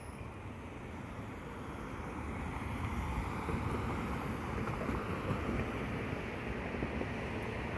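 Road traffic passing: a steady rumble of tyre and road noise with some wind on the microphone, growing louder about three seconds in as a car drives by close.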